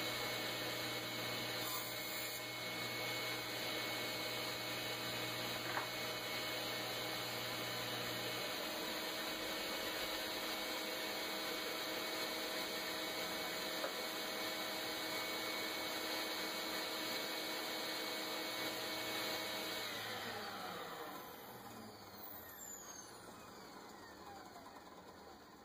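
A table saw running steadily with its motor hum. About 20 s in it is switched off, and the hum falls in pitch and fades as the blade spins down.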